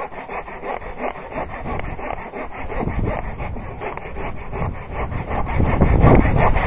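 Small hand pruning saw cutting through a green hickory branch in fast, even back-and-forth strokes, growing louder near the end.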